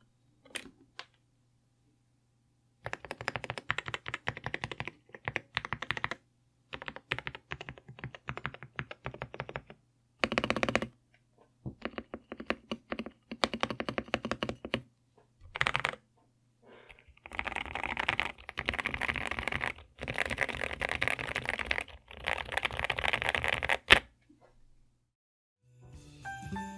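Typing sound test on a custom mechanical keyboard, a Cidoo ABM081 Stellar with factory-lubed Akko Rosewood switches: runs of quick keystrokes broken by short pauses and a few single heavier strokes, the longest and fastest run in the second half.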